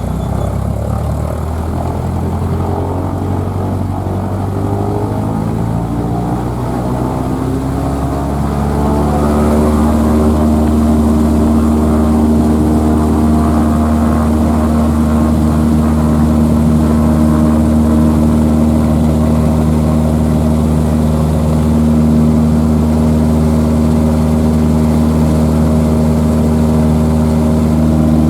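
Small propeller plane's piston engine throttling up. Its pitch climbs over the first eight seconds or so, then holds steady and loud at full power.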